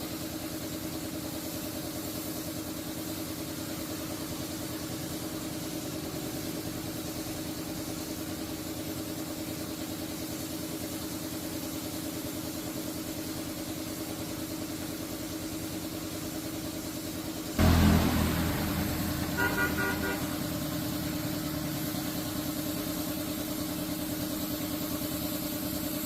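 Engine running steadily at idle with an even hum; about two-thirds of the way through it suddenly gets louder and rougher and stays louder.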